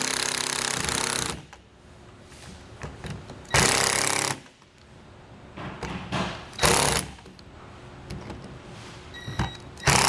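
Cordless driver running in short bursts as it tightens the screws holding a camper door lock's mounting plate. There are three bursts: a long one at the start, a shorter one about three and a half seconds in, and a brief one about six and a half seconds in.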